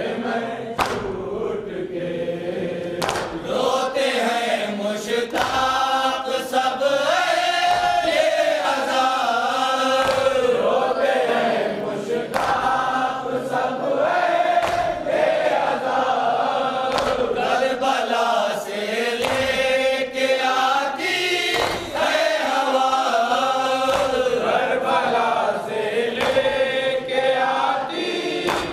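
A group of men chanting a noha, a mourning lament, led by one reciter at a microphone, with sharp thumps of hands striking chests (matam) recurring through the chant.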